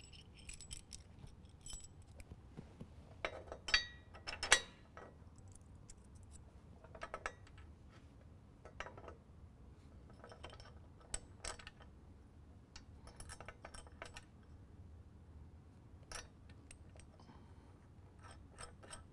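Small metal clinks and rattles of washers, lock washers and nuts being handled and threaded by hand onto bolts through a steel bumper bracket, with a few louder clinks about four seconds in.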